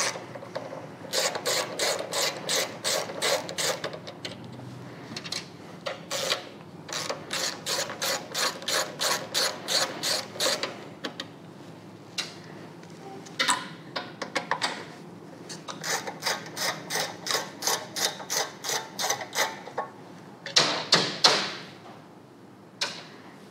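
A socket ratchet clicking in quick runs with short pauses as it undoes the 10 mm nuts holding the air filter elbow on a small Honda engine.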